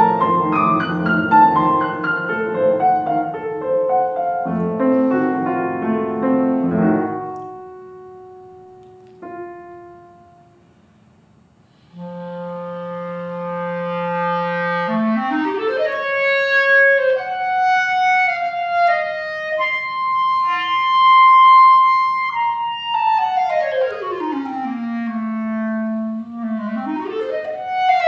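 A grand piano plays a dense passage that dies away, with one last chord about nine seconds in. After a short hush, a solo clarinet comes in about twelve seconds in on a long low note, climbs in a fast run into melodic phrases and a long high note, then sweeps down to a low note and runs back up.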